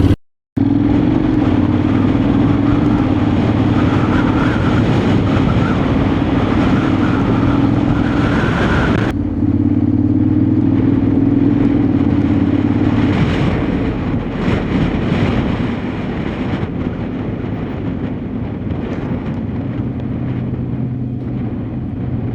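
Honda X-ADV 750's parallel-twin engine running steadily under way, with a rush of road and wind noise. It cuts out briefly at the very start, changes abruptly about nine seconds in, and runs quieter in the second half.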